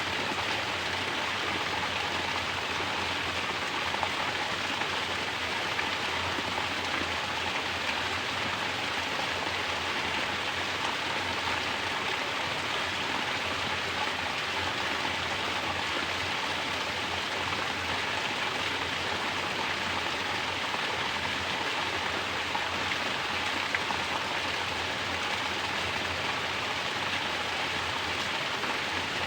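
Mountain water falling from a natural shower, splashing steadily and without a break.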